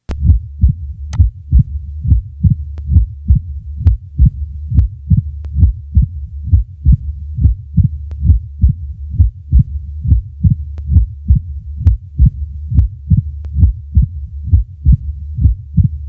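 Stethoscope recording of heart sounds at the cardiac apex in mitral stenosis: a steady beat about once a second, each beat a cluster of sharp clicks in which the second heart sound is closely followed by the high-pitched opening snap of the stenosed mitral valve, over a continuous low rumbling murmur.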